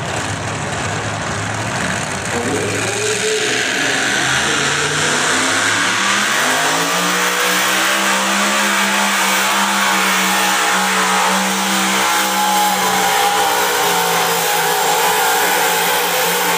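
A pulling vehicle's engine revs up over a few seconds, then holds steady at high revs, as under load during a pull.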